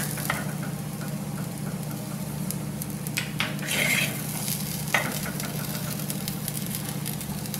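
Perforated metal spatula stirring and tossing boiled chickpeas in a clay kadai, scraping on the pot's clay sides every so often, most plainly about three to four seconds in and at five seconds, over a steady low hum.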